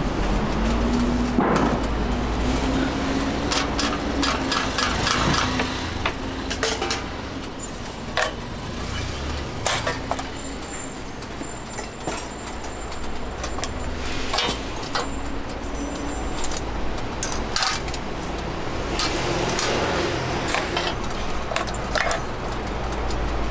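Street-stall ambience: a steady low rumble with a hum through roughly the first nine seconds, and frequent sharp metallic clicks and clinks throughout, typical of cooking utensils at a hotteok griddle.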